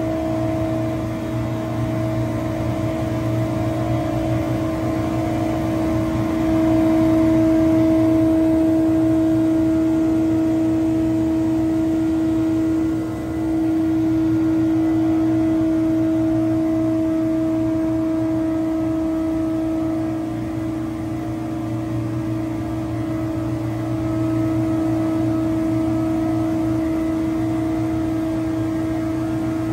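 Steady machinery hum in an industrial workshop, a constant drone with a fixed tone, dipping briefly about 13 seconds in.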